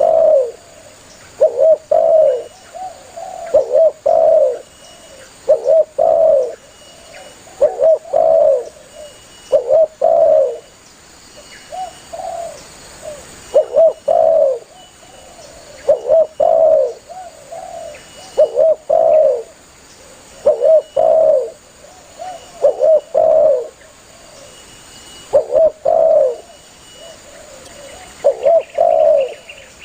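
Spotted dove cooing over and over, a short phrase of two or three coos about every two seconds.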